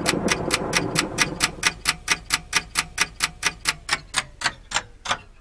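Clock ticking fast and evenly, about five ticks a second, gradually fading out, over a faint steady backing tone.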